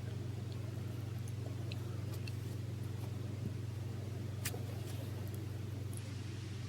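A steady low hum, with faint scattered clicks of a metal dental scraper against a dog's teeth as tartar is scraped off; one sharper click about four and a half seconds in.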